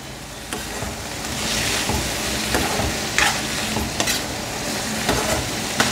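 Boiled field beans sizzling in a stainless steel kadai while the water cooks off, stirred with a steel spoon that scrapes and taps against the pan a few times.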